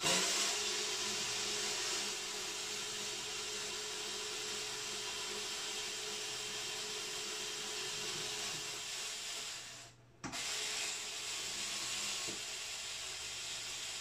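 Cordless electric screwdriver running steadily with a constant whine as it backs out the hex screws holding the speaker in a car subwoofer enclosure. It stops briefly about ten seconds in, then runs again.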